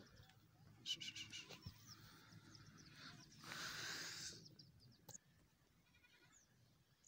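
Faint bleating of a goat, a short pulsing call about a second in. Around three and a half seconds in comes a noisier hiss lasting about a second.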